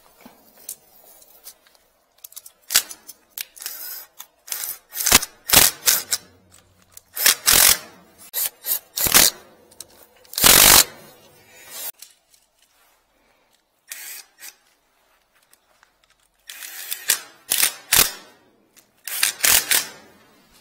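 Irregular knocks, clatter and short scrapes from handling a plastic drain pipe and its fittings, in clusters with brief pauses between them.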